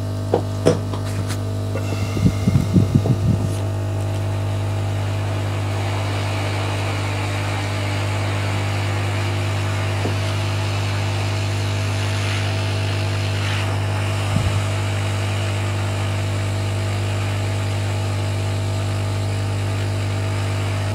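Hot air rework station's blower running steadily, a constant hiss of air over a steady hum, as the nozzle heats the LNB circuit board to desolder its oscillator. A few clicks and knocks come in the first few seconds, and one more knock comes about two-thirds of the way through.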